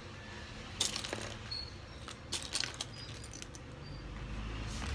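Small plastic building bricks clicking and clattering against each other as hands sort through a loose pile, in two clusters of sharp clicks, with a low rumble building near the end.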